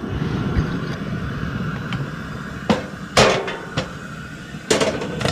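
Metal cooking pot clanking against a propane camp stove as it is set on and handled: about five sharp knocks in the second half, two of them ringing briefly, over a steady low rushing noise.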